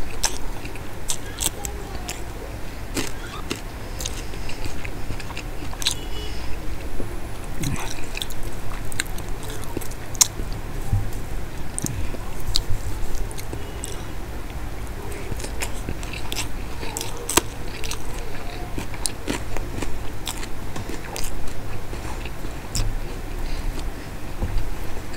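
Close-miked chewing of a mouthful of soft Bombay duck (lote fish) jhuri with rice, full of irregular sharp wet mouth clicks, over a steady low hum.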